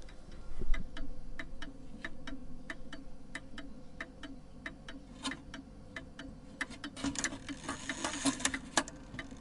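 Mechanical clock ticking steadily, a few ticks a second. About seven seconds in, a busier run of clicking and whirring joins the ticks as the striking mechanism is released, just before the clock strikes the hour.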